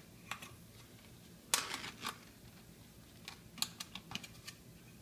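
Thin metal pull-tab lid of a canned ham being peeled back off the can: a few scattered small clicks and scrapes of the tin, the loudest about a second and a half in.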